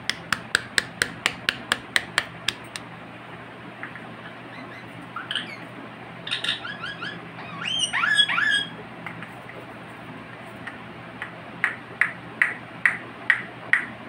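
Rose-ringed parakeet tapping a small plastic cup in a quick run of sharp ticks, about three a second. Midway come a few short chirping calls that rise and fall in pitch, and near the end the tapping starts again, slower.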